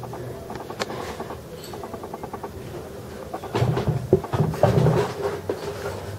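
Handling noise: soft bumps and rustles from a hand holding a crested gecko close to the microphone, loudest for a couple of seconds from about three and a half seconds in, over a steady low hum.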